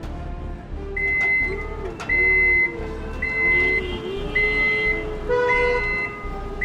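An electronic beep repeating at an even pace, about once a second, each beep about half a second long, over a lower wavering tone and a steady hum.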